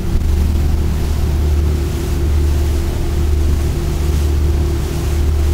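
Ocean Yachts 48's inboard diesel engines running under way at speed, a steady low drone, with rushing water from the wake and wind on the microphone.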